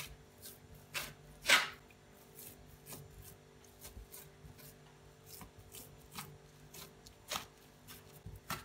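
Hands pressing and patting raw kibbeh dough flat on a plastic sheet: irregular soft pats and rubs against the plastic, the loudest about one and a half seconds in.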